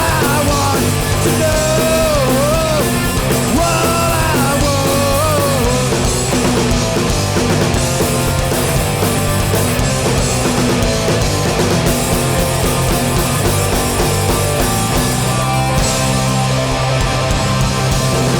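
Hardcore punk band playing live and loud: distorted guitars, bass and drums, with a wavering melodic line over the top for about the first five seconds.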